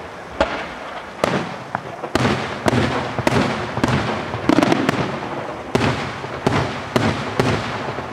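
Aerial fireworks shells bursting in quick succession, about a dozen sharp bangs roughly half a second to a second apart, each trailed by echo.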